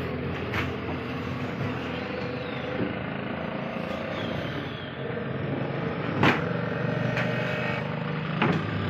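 Metal latches and wooden lids of a flight case clacking and knocking as the case is opened and the lids are lifted off, a few sharp knocks, the loudest just after six seconds and again near the end. A steady engine drone runs underneath.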